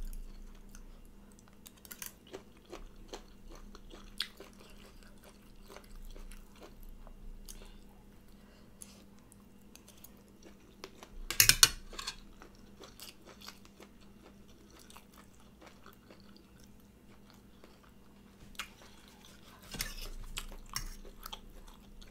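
Close-up chewing of rice and chicken gizzards, with small crunches and clicks. A short, louder burst comes about eleven seconds in, and a louder patch near the end.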